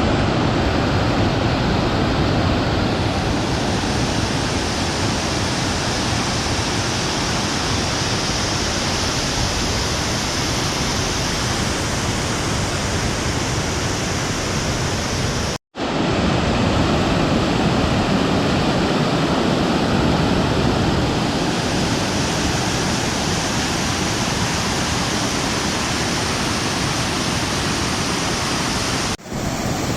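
Waterfall rushing over rocks: a steady, loud, full rush of falling water, broken by two brief dropouts, one about halfway through and one near the end.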